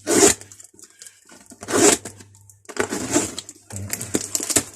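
Hand tools and their wrapping being handled: several short bursts of rustling with light metallic clicks.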